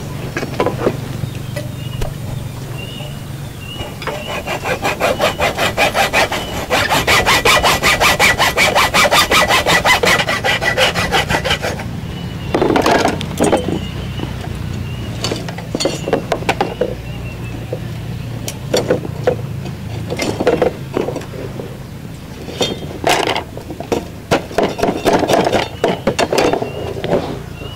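Blade sawing back and forth, cutting a piece off a homemade rat trap. There is a long run of rapid, even strokes, then shorter scattered bursts of strokes.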